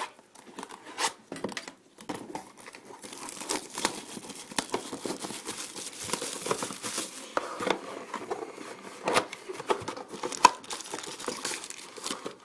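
Plastic shrink wrap crinkling and tearing as a sealed box of hockey cards is unwrapped and opened, with many small crackles and clicks of handling.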